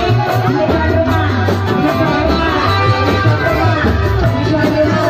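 Loud, amplified live music from a Reog troupe's band, with a woman singing into a microphone over a heavy pulsing bass.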